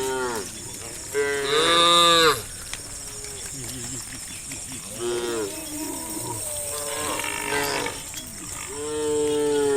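Cows in a herd mooing, about five calls one after another, each rising and falling in pitch; the loudest is about a second and a half in. A steady high insect drone runs underneath.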